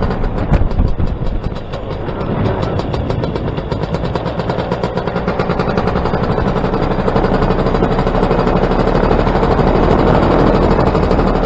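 Paramotor engine and propeller running, a loud fast-pulsing drone that grows steadily louder over the first several seconds.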